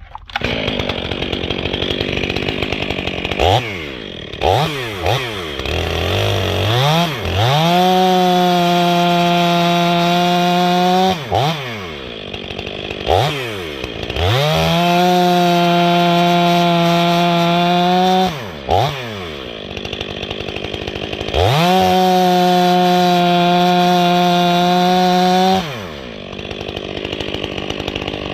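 Stihl 500i chainsaw, its muffler baffle removed and outlet port opened, running loud. It is blipped at part throttle between three long full-throttle runs of about four seconds each, holding a steady high pitch as it cuts through wood.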